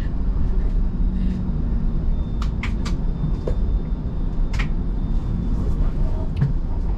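Inside a TTC streetcar in motion: a steady low rumble with a few sharp rattles or clicks, a quick cluster about two and a half to three seconds in and another near four and a half seconds.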